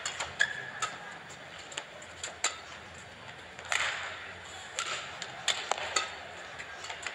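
Badminton rally: repeated sharp cracks of rackets striking the shuttlecock, traded back and forth, with short squeaks of shoes on the court between the hits.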